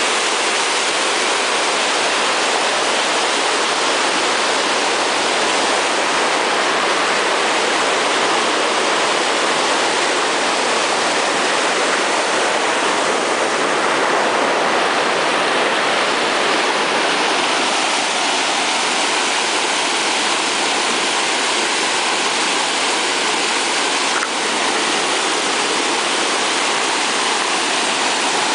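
The river Ognon pouring over a weir at a lock: a steady, loud rush of churning white water.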